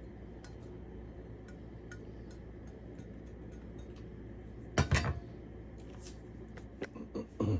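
Kitchen dishes and glassware knocking and clinking, with one loud knock about five seconds in and several lighter clinks near the end, over a low steady hum.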